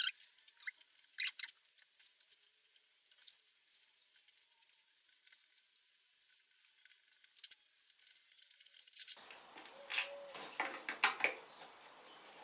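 Small plastic clicks and taps of a battery insect zapper's casing being handled and fitted back together, with a few sharper clicks about a second in and again about ten to eleven seconds in.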